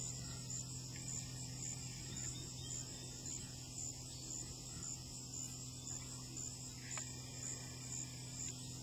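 Quiet outdoor ambience: insects chirping in a high, even pulse, over a steady low hum.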